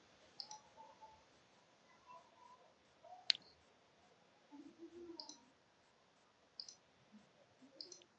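Faint hiss of an open video-call microphone with a few short, sharp clicks scattered through it, the loudest about three seconds in.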